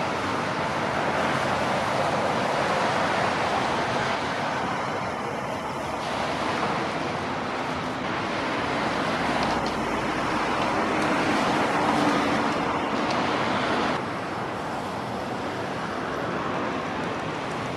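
Road traffic: a steady rush of passing cars, their tyres and engines swelling and easing as they go by, with a slight drop near the end.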